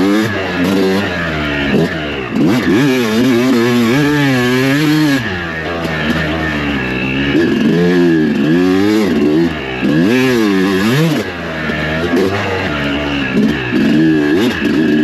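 Yamaha YZ250 single-cylinder two-stroke dirt bike engine being ridden hard. Its pitch rises and falls over and over as the throttle is opened and closed.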